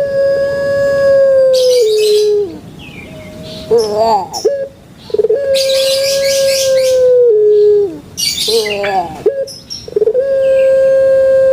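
Puter pelung dove (Streptopelia risoria) cooing: three long drawn-out coos, each held steady and then stepping down in pitch at the end, repeating about every five seconds. Short rising-and-falling notes sit between them, and bursts of high hiss come along with them.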